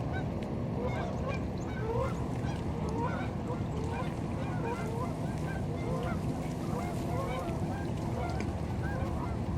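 A flock of geese honking, many short calls overlapping throughout, over a steady low background rumble.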